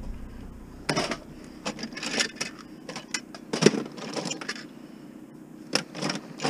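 Die-cast toy cars of the Hot Wheels type clinking and rattling against each other in a box as it is tipped and rummaged through, in several short spells of sharp metallic clicks.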